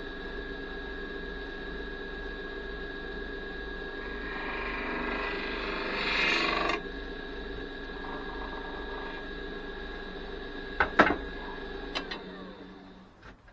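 Wood lathe running with a steady motor hum while a turning tool cuts the spinning cherry blank, the cut hissing louder for a few seconds and stopping suddenly. A few sharp clicks follow about eleven and twelve seconds in, then the lathe winds down near the end.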